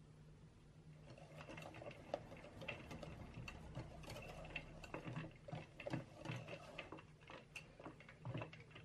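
Wire balloon whisk beating whipped cream in a glass bowl, working coffee paste in. Its wires tick quickly and unevenly against the glass, starting about a second in.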